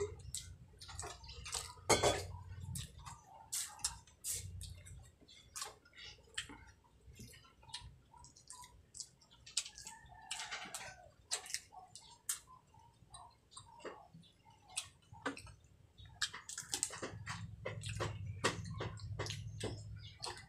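Close-up mukbang eating sounds: wet chewing and lip-smacking, a string of irregular short clicks and smacks as fried tilapia in sweet-and-sour escabeche sauce is eaten by hand.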